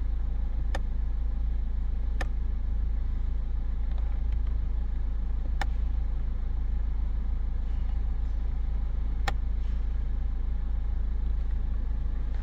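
Nissan Qashqai's engine idling steadily, heard from inside the cabin as a low rumble, with four sharp clicks spread through it.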